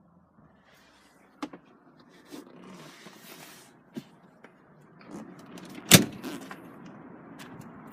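Clicks of a car's switches, then a car's electric window motor whirring for a few seconds, with a sharp clunk about six seconds in.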